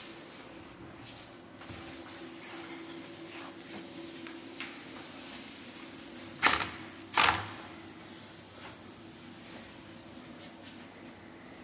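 Cloth wiping hard countertops, with soft rubbing and small handling clicks over a steady faint hum. Two sharp knocks less than a second apart midway through are the loudest sounds.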